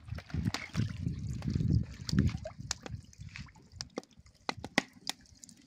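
Hands scooping live crayfish out of a plastic bucket of water: water sloshing with the clatter and clicking of the crayfish shells, loudest in the first two seconds or so. After that come only scattered sharp clicks.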